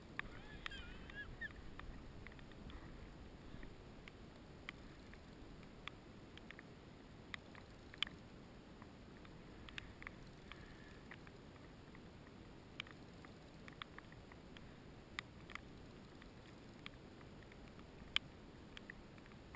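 Small sharp clicks and knocks of fishing tackle and a sit-on-top kayak, coming at irregular intervals over a faint low rumble, while an angler plays a fish on a bent rod. A brief wavering high squeal comes about a second in.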